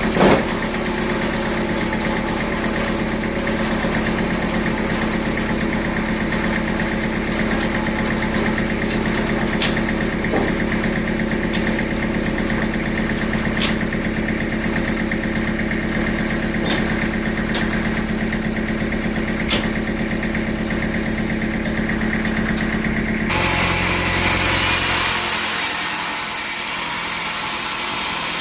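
Sawmill machinery running steadily with an engine hum and a few sharp ticks. About 23 seconds in, this gives way abruptly to the rushing noise of a saw cutting through wood.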